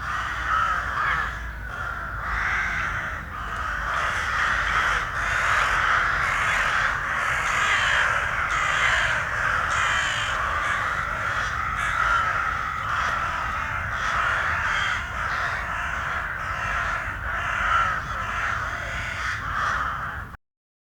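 A flock of crows cawing, many calls overlapping in a continuous chorus over a low rumble. It cuts off abruptly near the end.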